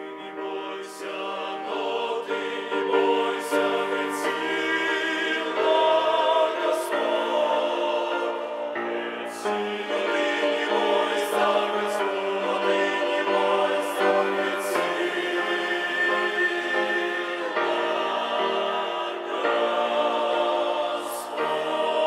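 Church choir singing a hymn, growing louder over the first few seconds and then holding full.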